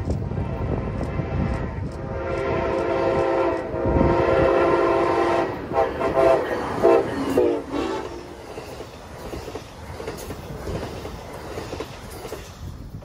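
Amtrak Pacific Surfliner passenger train sounding its multi-note horn in several blasts as it approaches, the last ones short, ending about seven and a half seconds in. The bilevel cars then rush past close by, their wheels clacking over the rail joints.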